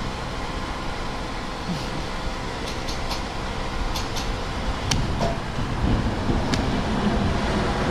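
Petrol running from a fuel-pump nozzle into a motorcycle's tank, a steady rushing hiss as the tank is filled, with several light clicks in the middle.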